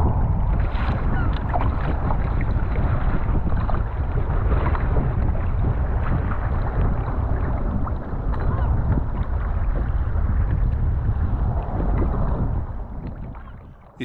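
Wind buffeting the microphone over choppy lake water splashing against the hull of a Rockhopper kayak as it is paddled into the wind; the sound fades out near the end.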